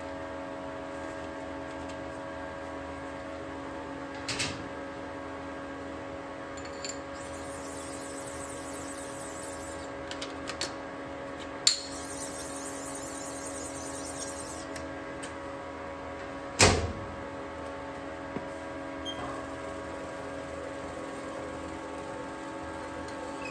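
Metal lathe running steadily at about 150 RPM, a hum of several even tones. Over it come a few sharp clicks and knocks, the loudest a thump about 17 seconds in, and two short stretches of high hissing rustle.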